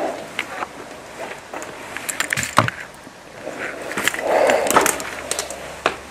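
Crunching and clicking of debris underfoot, with a thud about two and a half seconds in. A hissing breath through a respirator about four seconds in.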